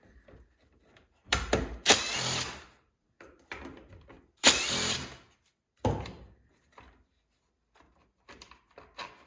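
Cordless drill-driver run in short bursts, three main runs, backing out the screws that hold the saw's plastic casing, with small knocks and clatter in between.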